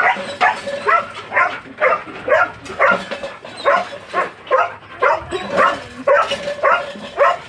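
Dog barking over and over in short yelping barks, about two a second, without a break.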